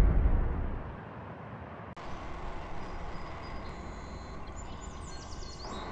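A loud intro boom dies away over the first second; then, after a cut about two seconds in, a quad bike (ATV) runs steadily along, its engine and rushing air noise picked up at modest level by a camera mounted on the machine.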